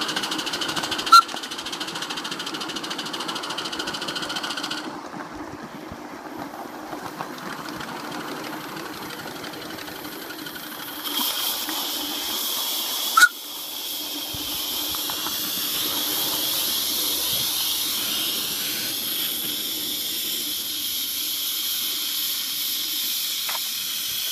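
Miniature live-steam locomotive hissing steam as it runs, with two sharp clicks, one about a second in and one about halfway through. From about halfway the steam hiss grows louder and stays steady and high-pitched.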